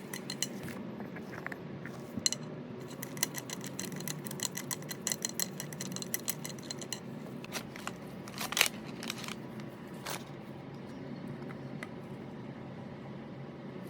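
Rapid small metallic clicks and clinks from hand tools and metal parts being worked on a piston sprayer during reassembly, dense for the first half, then a few separate clicks with one sharper one past the middle, over a steady low hum.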